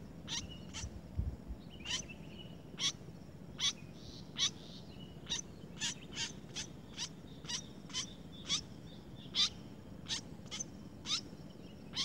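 White-breasted woodswallow calling: a long series of short, sharp chirps, each dropping steeply in pitch, about two a second and coming faster in the second half.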